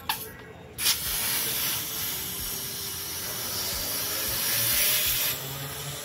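Can of refrigerant gas spraying onto a refrigerator's defrost bimetal thermostat: a steady hiss that starts abruptly about a second in and stops shortly before the end. The spray chills the bimetal to test whether it closes.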